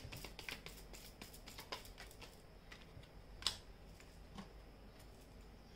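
Faint clicks and soft rustles of tarot cards being handled and drawn from the deck, with one sharper tick about three and a half seconds in.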